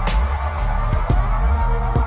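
Electronic background music with a heavy, steady bass beat.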